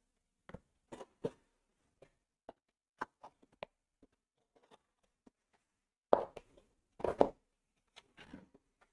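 Box cutter slitting the packing tape on a cardboard shipping box: a string of small scratches and clicks, then louder cardboard scrapes and rustles as the flaps are pulled open, about two-thirds of the way through.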